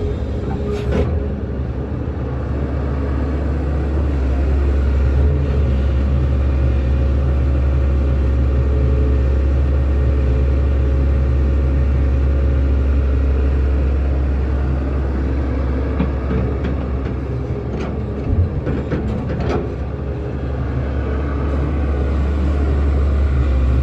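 Heavy diesel earthmoving machinery running steadily with a deep, low rumble, with a few short knocks about a second in and again later on.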